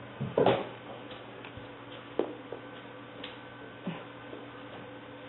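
A springer spaniel puppy moving about on a rug: a few soft scuffs and knocks, the loudest a scuffle about half a second in and a sharp click about two seconds in. A steady electrical hum runs under it.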